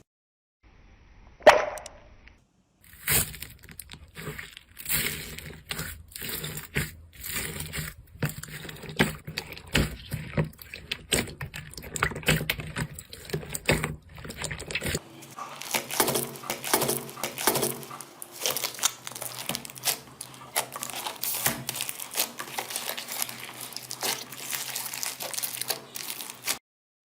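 Slime being squished and poked by hand, making quick irregular sticky clicks and crackles that change in texture about halfway through.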